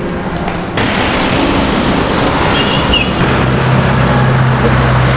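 Street traffic noise from passing vehicles, with a vehicle engine running close by and droning steadily from about three seconds in.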